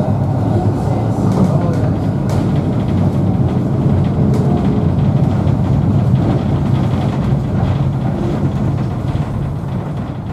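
Vintage double-deck electric tram (Liverpool Corporation 762, built 1931) running along its track, heard from inside the upper-deck saloon: a steady low rumble of wheels on rail and the moving car body, with a couple of sharp clicks.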